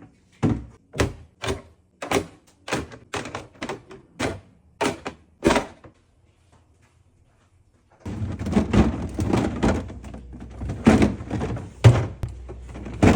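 A quick series of knocks and clunks, about a dozen at roughly two a second, like containers and packages being set down on refrigerator shelves and knocking against each other. The knocks stop about six seconds in, and after a short silence a continuous clattering, rumbling noise starts.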